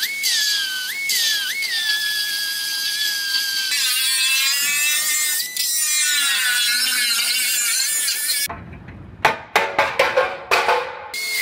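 Pneumatic cutting tools cutting into the steel frame and radiator support: a high whine whose pitch dips about every second as the tool bites, then a wavering whine from a 90-degree cut-off wheel grinding through the metal. Near the end, a run of sharp metal knocks.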